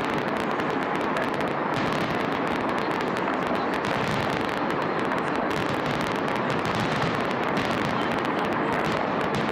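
Fireworks salute bursting overhead: a dense, unbroken crackle of many small pops at an even level throughout.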